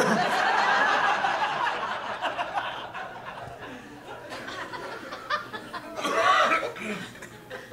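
Comedy club audience laughing, loudest at first and dying away over a few seconds, with a second short burst of laughter about six seconds in.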